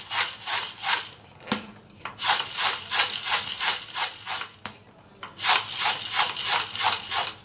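Crisp, dry namkeen mixture of sev, boondi, peanuts and dal rattling and rustling against the sides of a metal pot as it is tossed and mixed by hand. It comes in quick strokes, about three a second, in three spells with short pauses between, and the loud, dry rattle shows how crisp the fried snack is.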